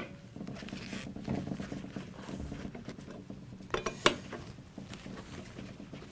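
A hand screwdriver turns out the 1/4-inch hex screws that fasten a sheet-metal heat shield to a fan motor. The turning screw scrapes and rattles lightly, with sharp metal clicks at the start and about four seconds in.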